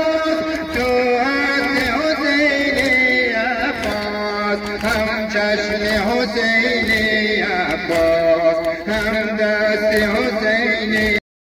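A solo voice singing a Persian noha, the Muharram lament, in long held notes that waver and slide between pitches. It cuts off suddenly near the end.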